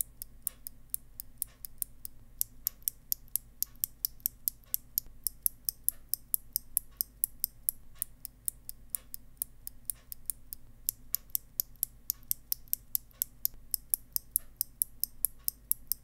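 Kailh BOX Pink click-bar switch pressed and released by hand over and over, about two presses a second. Each press gives a sharp click going down and a noticeably softer click coming back up. The clicking breaks off briefly about ten seconds in.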